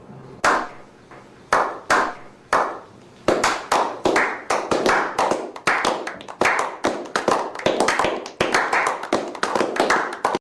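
Hand clapping: a slow clap, about one clap a second, that speeds up into rapid clapping about three seconds in.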